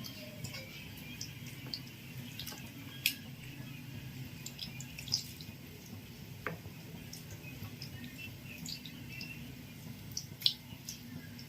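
Faint, irregular wet clicks and ticks of raw chicken pieces being mixed with oil and seasoning in a bowl, over a low steady hum.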